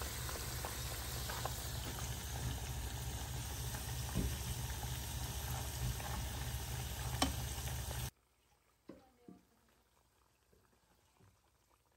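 Pakoras deep-frying in hot oil: a dense, steady sizzle with scattered crackles. It cuts off suddenly about eight seconds in, leaving near silence with a few faint clicks.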